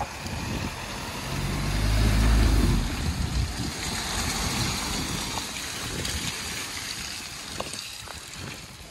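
Nissan X-Trail 177 hp diesel SUV driving slowly through mud close past, its low engine note loudest about two seconds in, then fading as it pulls away.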